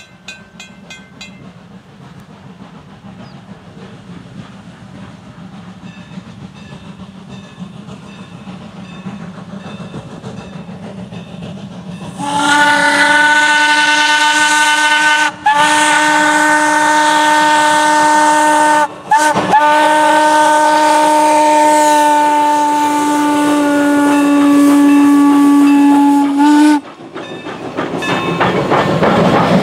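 Norfolk and Western 4-8-0 steam locomotive No. 475 blowing its whistle in the long-long-short-long grade-crossing signal, the last long blast held about seven seconds. Before the whistle, the approaching train's rumble grows steadily louder. After it, the passenger cars roll past with wheel clatter.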